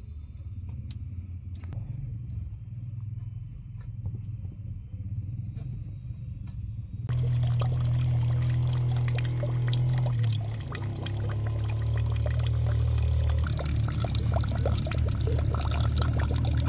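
Water pouring in a steady stream and splashing into a plastic bucket, starting suddenly about halfway through. Before that there is only a low rumble with a few faint knocks.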